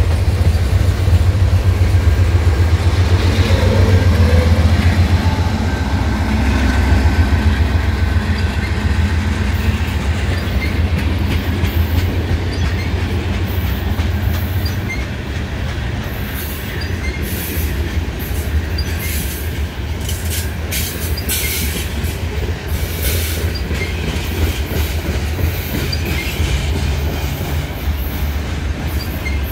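CN mixed freight train rolling past: a steady rumble and clickety-clack of wheels on the rails, loudest early on. From about ten seconds in come repeated brief, high-pitched wheel squeals.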